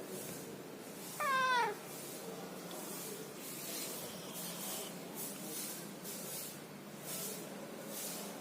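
A domestic cat gives a single short meow that falls in pitch, about a second in. Soft, hissy rustling noises recur faintly around it.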